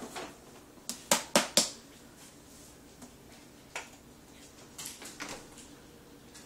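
A quick run of four sharp clicks about a second in, then a few softer scattered clicks and taps.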